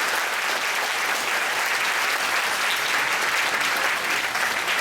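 Audience applauding steadily at the close of a lecture, the clapping fading shortly afterwards.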